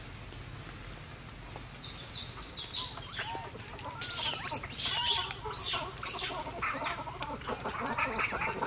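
Animal calls begin about two seconds in: a run of short chirps and squeals, loudest in the middle, then quicker pulsing calls near the end.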